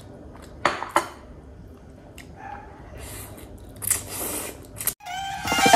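Chopsticks or fork clicking twice against a bowl about a second in, then a mouthful of instant noodles slurped up in two draws. Music starts suddenly near the end.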